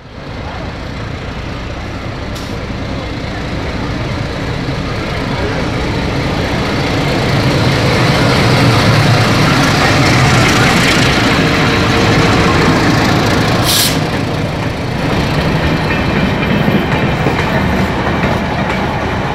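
Alco RSD-39 diesel locomotive passing close by, its diesel engine and rumble growing louder as it comes alongside. Its passenger coaches follow, rolling past with a sharp clank about fourteen seconds in.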